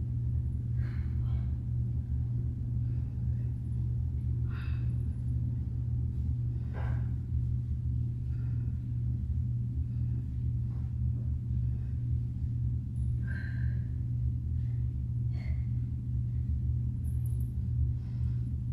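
Steady low hum, with a few short, faint exhales from a person working through a core exercise.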